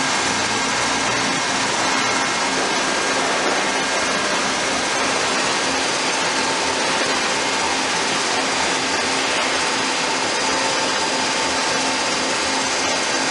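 Giddings & Lewis G60-FX CNC horizontal boring mill running under power: a steady whirring hiss with a few faint constant tones.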